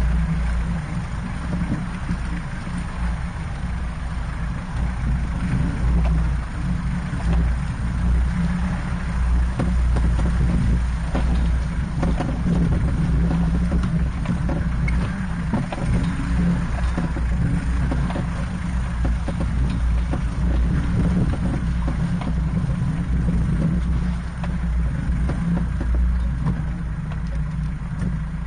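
Four-wheel-drive vehicle's engine running at low speed with a steady low drone, heard from inside the cab, as it crawls through water and over rocks. Frequent irregular knocks and jolts come from the body and suspension, with water sloshing around the tyres.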